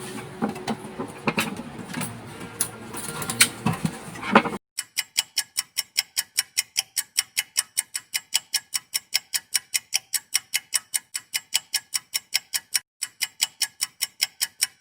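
A few seconds of handling clicks and knocks, then an abrupt switch to a clock-ticking sound effect: even ticks at about four to five a second with dead silence between them, pausing briefly near the end.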